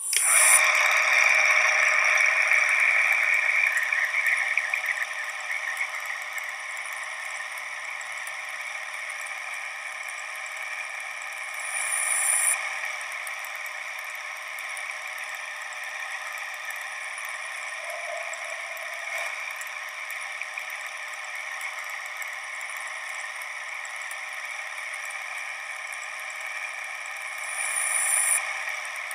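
Steady whirring, clattering mechanism of a projection machine on an old film soundtrack. It starts suddenly and is loudest for the first few seconds, then settles to a steady run, swelling briefly about twelve seconds in and again near the end.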